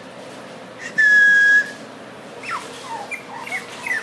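Australian Terrier puppies whining: one long high whine about a second in, then a run of short squeaks, each falling in pitch.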